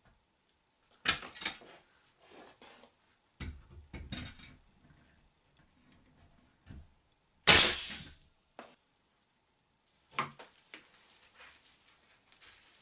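A pneumatic nail gun fires once about halfway through, a loud sharp shot with a short tail, driving a nail into the wooden 2x4 bench frame. Around it are lighter knocks and clatter of the lumber being set and handled, and after it a few clicks and rustles as a level is laid on the frame.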